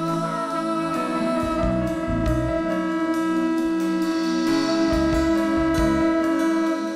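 Worship music played by a band, with sustained guitar or keyboard tones over bass and drums.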